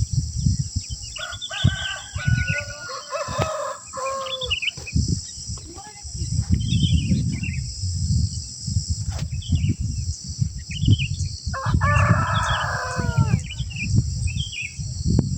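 A rooster crowing twice, each crow about two seconds long and falling in pitch at the end, over a steady high insect drone and scattered small bird chirps.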